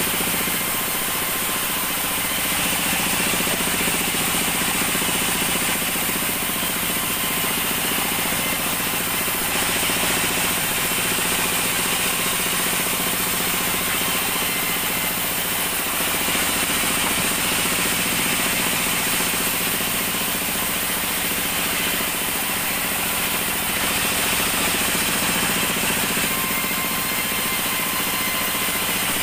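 Sawmill vertical band saw running steadily, its blade ripping acacia planks that are fed through by hand.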